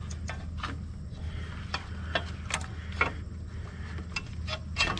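Metal hand tools clicking and clinking on a stripped bolt as it is worked loose, about a dozen irregular sharp clicks, over a steady low hum.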